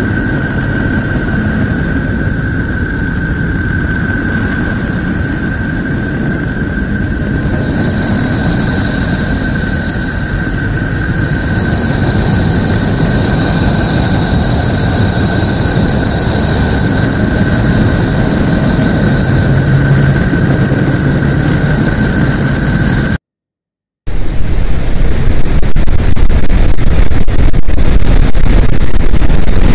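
Deep rumbling noise with a steady high whistle held over it, presented as the sound of Neptune: radio emissions converted into audible sound. It cuts out briefly near the end, and a louder, rougher rumble follows, presented as the sound of Pluto.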